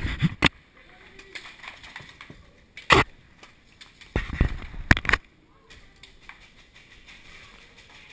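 A few sharp clicks and knocks: two at the start, one about three seconds in, and a quick run of several between about four and five seconds in, over quiet outdoor background.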